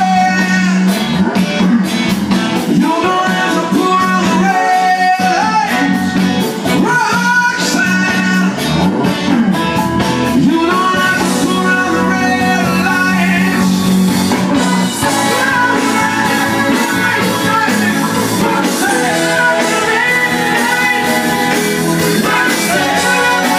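Rock music with singing and guitar, played loud through speakers powered by a rack of QSC GX5 and GX3 power amplifiers.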